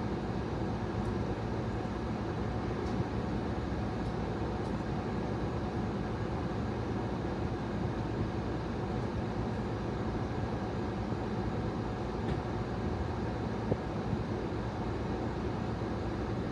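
Steady low rumble of a parked vehicle's engine idling, heard from inside the cabin.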